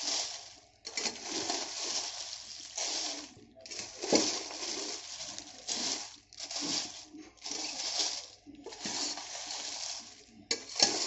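A metal spatula stirs dried red chillies in a large steel pan, in repeated strokes of about a second each with short breaks. The dry, lightly oiled chillies rustle and the spatula scrapes against the pan.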